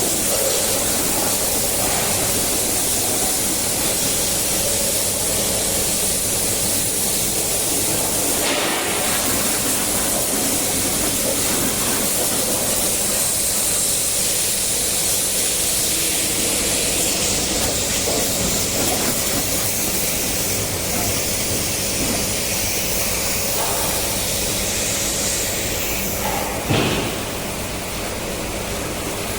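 High-pressure water jet spraying steadily against a backhoe loader, a loud continuous hiss and splash, over a steady low engine hum. A brief knock near the end.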